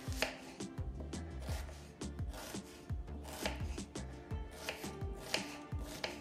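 A kitchen knife cutting an onion on a wooden cutting board: irregular knocks of the blade striking the board, a couple a second, over background music.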